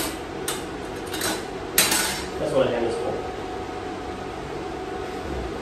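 Sheet-metal parts clinking and clanking on a metal table top: a few light clinks, then a louder clank about two seconds in that rings briefly.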